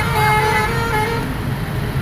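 Telolet multi-tone air horn playing a short stepping melody over a running engine's rumble; the horn stops a little over a second in, leaving the engine running.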